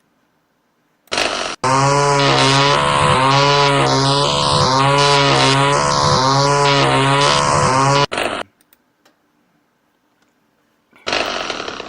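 A loud buzzing sound effect played back from a computer, with a steady low hum under overtones that waver in pitch about once a second; it lasts about seven seconds and stops, and a similar buzz starts near the end.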